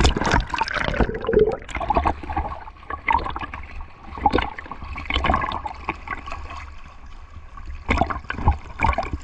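Seawater sloshing and gurgling right at a camera microphone held at the surface, which dips underwater and back up, with irregular splashes.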